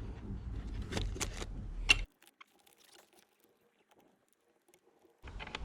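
Light metallic clicks and taps from hand-tool work on the seat bolts with an Allen key, over low handling rumble. The sharpest click comes just before the sound drops to near silence for about three seconds, and the clicking resumes near the end.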